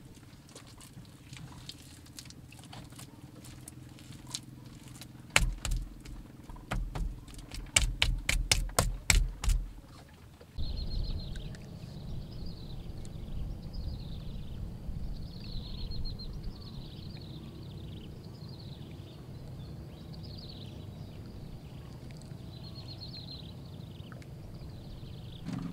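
Hands working wet mud onto a stove, light scraping and then a quick run of loud slaps for about four seconds. After a cut, a steady low rumble with short high chirps repeating every second or two.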